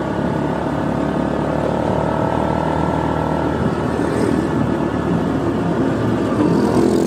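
Minerva GTR 150 automatic scooter running at a steady riding speed, engine drone mixed with road noise, getting slightly louder near the end.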